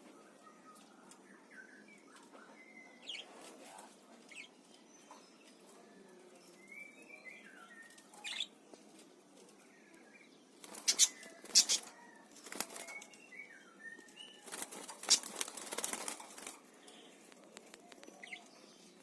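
Parakeets chirping faintly and sporadically, with two loud bursts of wing flapping in the second half.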